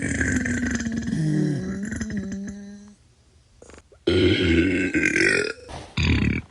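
A person burping: a long, drawn-out burp that trails off about three seconds in, then after a short pause a second burp of about a second and a half and a brief third one near the end.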